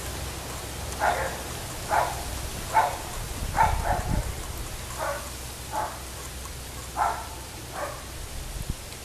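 A dog barking repeatedly at a distance, about one short bark a second, over a steady low hum.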